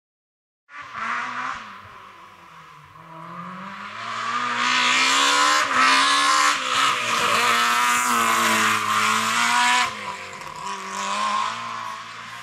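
BMW E30 rally car's engine coming in about a second in and growing louder as the car approaches at speed, its pitch repeatedly climbing and dropping with gear changes and lifts; it is loudest as the car passes and falls away after about ten seconds.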